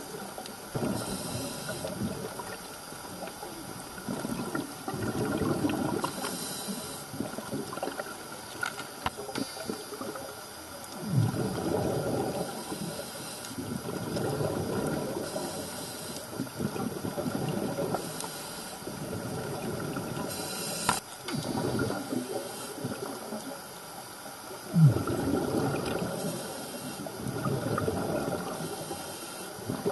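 Scuba diver breathing through a regulator underwater: short hissing inhales alternate with longer bubbling bursts of exhaled air, about one breath every three to four seconds.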